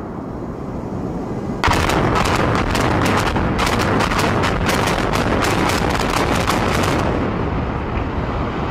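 Explosive charges of a high-rise hotel tower implosion going off in a rapid string of sharp blasts, several a second, starting about a second and a half in and lasting some five seconds, then giving way to a steady rumble as the tower collapses.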